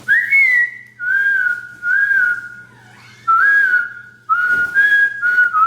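A man whistling a song's melody in about five short phrases of a few notes each, with brief pauses between them.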